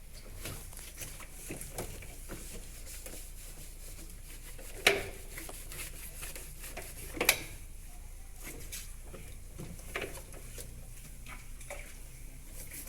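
Light scrubbing and handling noises on a washing machine's plastic body during cleaning, over a steady low hum, with two sharp knocks about five and seven seconds in.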